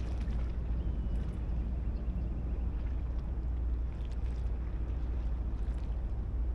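Harbour-side ambience: a steady low rumble, with faint scattered ticks and small splashes of water against the quay.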